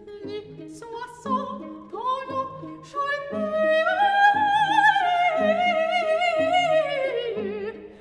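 Coloratura soprano singing an aria over a string quartet. The strings play short, evenly repeated chords underneath while the voice rises and holds a long note with wide vibrato through the middle, then slides down near the end.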